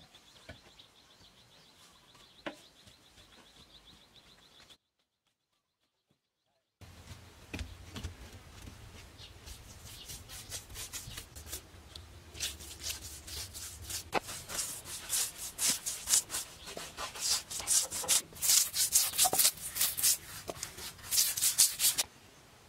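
Paint being brushed onto a rough cement surface: a run of scratchy rubbing strokes that grow louder and quicker in the second half. Before it, a faint high steady whine and a brief dropout to silence.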